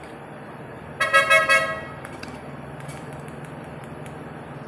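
A horn toots about a second in: a short run of quick blasts on one steady pitch, over a steady low hum.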